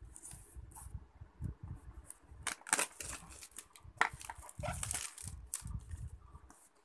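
Clear plastic shrink-wrap on a smartphone box being slit with a pen tip and pulled off, crinkling and crackling in two louder spells, about two and a half seconds in and again around four to five seconds in, with handling rumble from the box.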